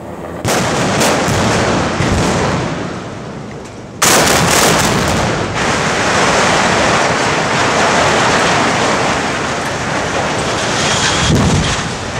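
Demolition explosive charges going off in a rapid series of sharp blasts. About four seconds in a louder volley of blasts sets off a long, steady rumble as the structural-steel boiler houses collapse.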